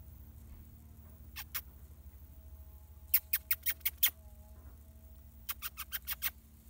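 Short, sharp squeaky animal chirps in quick runs: two, then a run of six, then a run of seven, about six a second.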